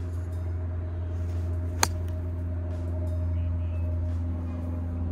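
A golf iron striking the ball on a full approach swing: one sharp click about two seconds in, over a steady low hum.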